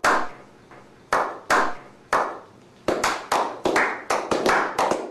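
Slow clap: a few lone hand claps roughly half a second to a second apart, then the claps come faster and closer together as more people join in, each with a short ringing echo.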